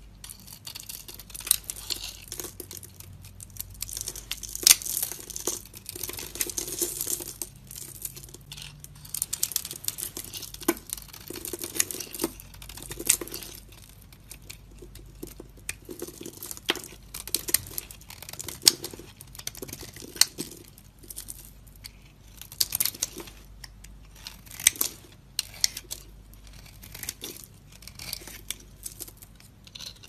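A snap-off utility knife blade shaving and slicing dry bar soap, in crisp crackling, scraping strokes with many sharp clicks. Partway through, hands crush and crumble the cut soap pieces.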